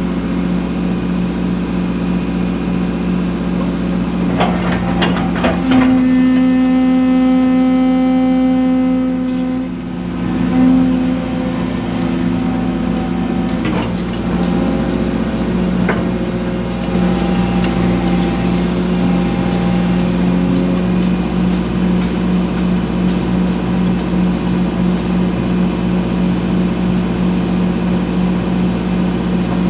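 Excavator's diesel engine and hydraulics running steadily. About six to ten seconds in, a louder, higher hum rises as the machine works under load. A few sharp knocks come at about four to five seconds in and again briefly later.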